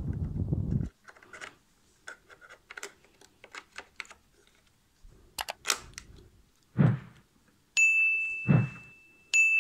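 Small clicks, taps and a few knocks of hands seating a laptop RAM module into its slot and handling the open laptop, with two bright ringing pings near the end.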